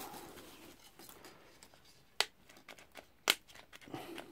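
Faint rustling of a plastic bag, then two sharp clicks about a second apart as a cordless drill is handled.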